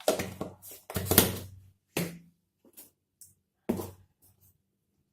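Kitchen utensils knocking while spices are added to the marinade: four sharp knocks roughly a second apart, the loudest about a second in.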